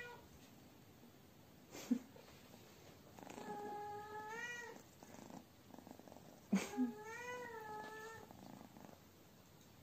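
Cat meowing: two long meows about three seconds apart, each held fairly level and then rising in pitch at the end. There are a couple of short soft knocks as well.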